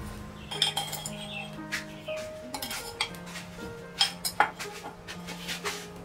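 A metal spoon clinking sharply against a clay pot and a ceramic bowl, about ten separate clinks, as sugar is spooned into the pot and stirred. Soft music plays underneath.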